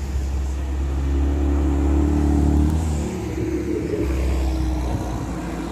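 Hot-air balloon's propane burner firing in a long, low rumbling blast that breaks off about three seconds in and starts again moments later.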